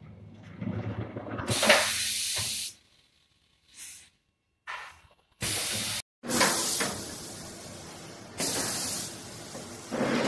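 Compressed air hissing in a string of sudden blasts from the valves and air cylinder of a pneumatic heat transfer press. Most blasts last under a second and a couple run one to two seconds, with short silences between them. There is a loud knock about two seconds in.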